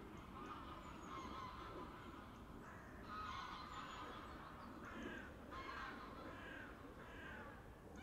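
Geese honking: a string of short calls, coming faster about three seconds in, over a low steady outdoor background.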